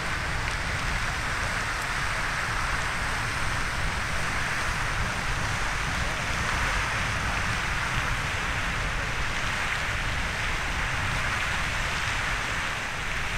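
Riverside Geyser erupting: a steady hiss of steam and water spray that does not let up.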